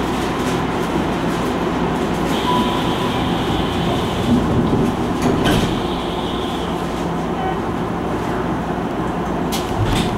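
Tokyu Toyoko Line train running through a tunnel: a steady rumble of wheels on rail, with a high steady squeal for a few seconds from about two seconds in and sharp clicks about midway and near the end.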